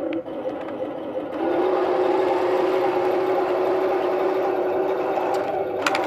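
Wooden 1:16 Maus RC tank with a Heng Long 5.3 drive system running as it drives: a steady mechanical whir, quieter for about the first second and a half, then louder and even. A sharp click near the end.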